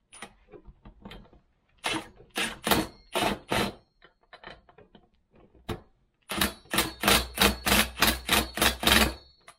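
Cordless impact wrench with a 19 mm socket hammering in two short runs, about two seconds in and again from about six seconds, as it tightens the left-hand-thread clutch onto a Stihl MS-290 chainsaw's crankshaft.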